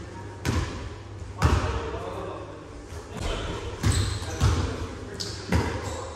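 Basketball bouncing on a sports-hall floor: about five hard, irregularly spaced bounces, each echoing in the hall.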